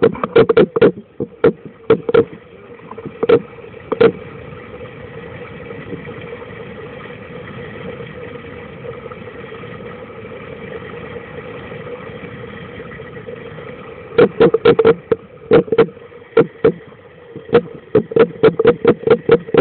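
Rapid knocking and bumping on a sealed Pelican hard case holding the camera as it sits in the water, heard muffled from inside the case. The knocks come thick at first and thin out over a few seconds, give way to a steady dull rush, and start again near the end.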